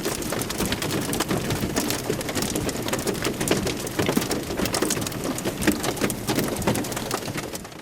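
Hail and heavy rain pelting a car, a dense, steady patter of hard clicks and knocks that fades out near the end.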